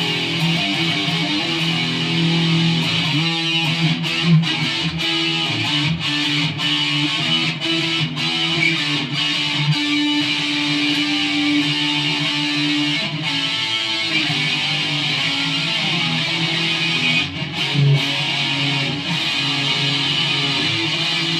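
KH-1 custom electric guitar played through an amplifier with distortion: a continuous run of riffs and chords, with one note held for a few seconds past the middle.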